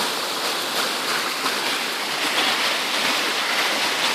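Rushing water of a waterfall's top: a steady, even rush of flowing water.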